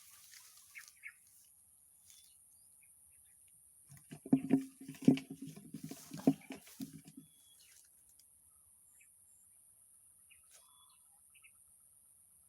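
A steady high-pitched insect drone, with a loud cluster of knocks and rubbing over a low hum about four seconds in that lasts some three seconds.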